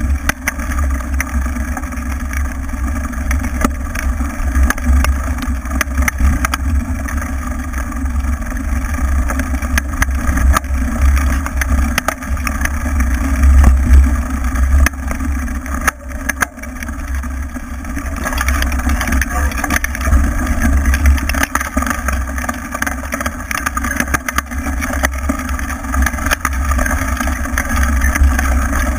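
Wind buffeting the microphone of a camera mounted on a mountain bike, a loud steady low rumble, with the knobby tyres rolling over grass and dirt and the bike clattering and clicking over bumps.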